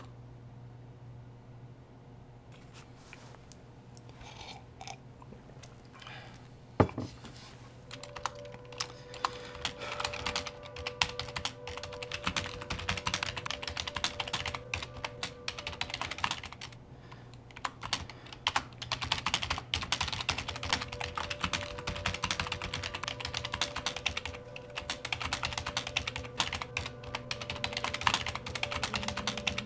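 Typing on a computer keyboard: a few scattered key clicks at first, then fast runs of keystrokes with short pauses between them. A low steady hum lies underneath.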